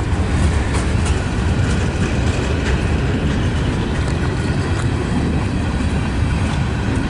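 Freight train cars rolling slowly past: a steady low rumble with faint wheel clicks.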